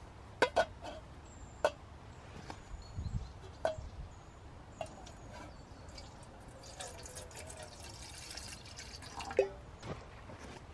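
A handful of sharp, irregularly spaced pops and clicks, some with a short ringing tail, over a faint low rumble.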